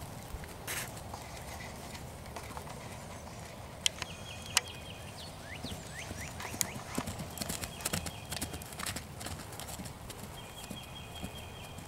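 A young colt's hooves thudding irregularly on grass as it trots and canters loose, with two sharp clicks about four seconds in and faint high chirps behind.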